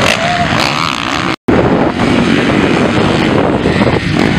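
Several motocross dirt bikes racing, their engines running loud and revving up and down. The sound drops out for a moment about a second and a half in.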